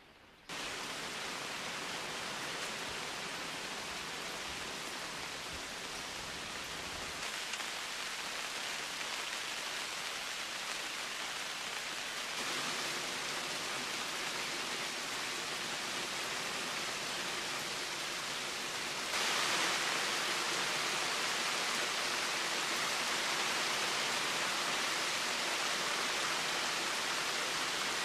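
Heavy tropical downpour: a steady hiss of rain pelting a river surface and the forest canopy. It starts abruptly about half a second in and grows louder in steps, most clearly about two-thirds of the way through.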